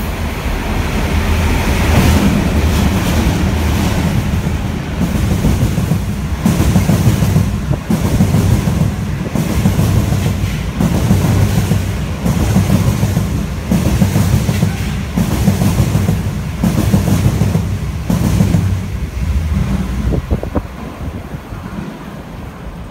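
Diesel locomotive running through at speed, followed by a long rake of passenger coaches rolling past. The coach wheels clatter in a regular beat about every one and a half seconds. The sound fades as the last coach goes by near the end.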